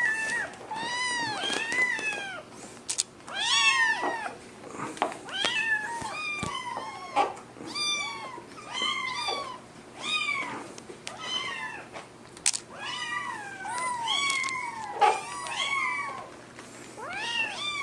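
Kittens meowing over and over in high, rising-and-falling calls, about one or two a second, sometimes overlapping.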